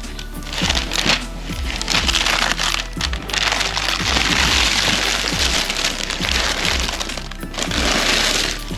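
Packaging crackling and crinkling as a box is opened and unpacked by hand, over background music with a steady beat.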